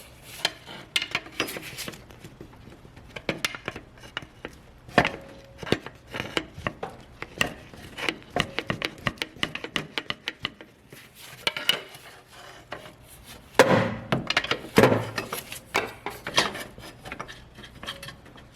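Irregular metal clinks, knocks and scraping as a pry bar levers an alternator loose from its mounting on a Toyota Hilux engine, with two louder knocks about two-thirds of the way through.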